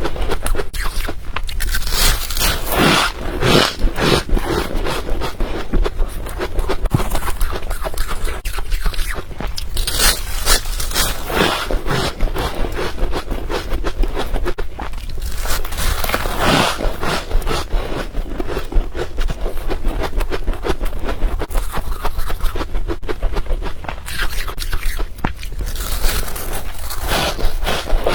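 A person biting and chewing crushed ice close to the microphone: continuous crisp crunching and crackling, with several heavier bites.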